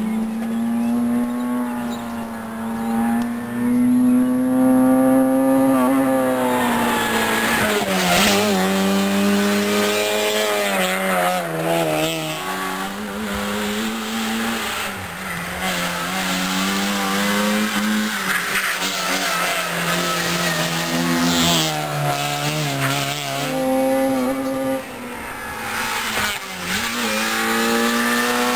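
Opel Astra GSi rally car engine revving hard, its pitch climbing in each gear and dropping at every gear change, over several runs past the camera.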